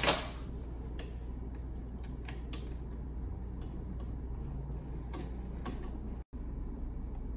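Faint scattered clicks and taps of hands fitting 3D-printed plastic cable-chain parts and wiring on a 3D printer frame, over a steady low hum.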